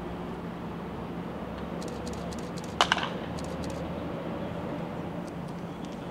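Wooden baseball bat hitting a pitched ball in a batting cage: one sharp crack about three seconds in, with a second smaller knock right after it, over a steady low hum.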